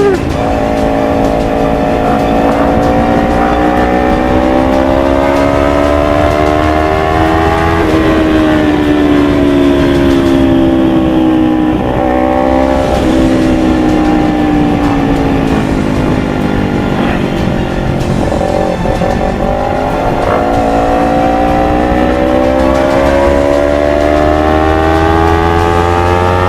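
Kawasaki Ninja 250 FI two-cylinder engine running through an Akrapovic full-system exhaust while riding. Revs climb slowly, drop sharply at a gear change about eight seconds in, then climb again over the last several seconds.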